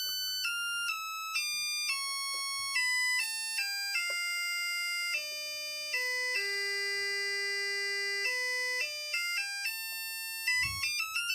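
A coil driven by a signal generator through a MOSFET, whining at the drive frequency. The tone steps down in pitch about a dozen times, with a small click at each change, holds at its lowest for about two seconds past the middle, then steps back up quickly near the end, following the frequency as it is turned down and back up.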